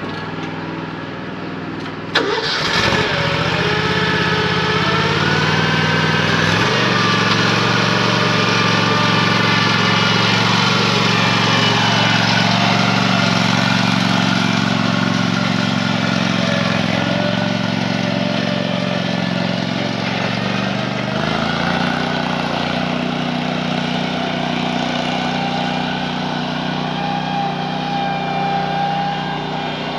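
Riding lawn mower's engine running while the mower is driven. About two seconds in there is a sharp click, and the engine gets louder and climbs in pitch, then runs steadily. Its pitch shifts again a little after twenty seconds in.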